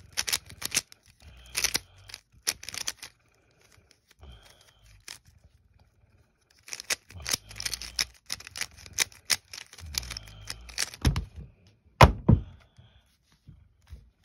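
Plastic 3x3 speed cube being turned fast: rapid runs of clicking and clacking from the layers, with a lull of a few seconds in the middle. About twelve seconds in, a sharp thump, the loudest sound, as the cube is set down and the hands slap the stackmat timer to stop it.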